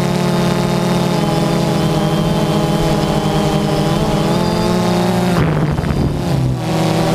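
DJI Phantom 2 quadcopter's motors and propellers running with a steady multi-toned buzz. About five and a half seconds in the buzz turns rough for about a second and its pitch shifts, then settles again.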